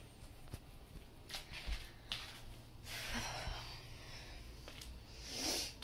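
A person breathing and sighing close to a phone microphone: a few short breaths, a longer exhale about three seconds in, and a sharper intake of breath near the end.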